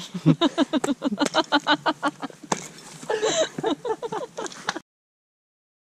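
A woman laughing in a long run of quick, breathy bursts, which cuts off abruptly into dead silence a little under five seconds in.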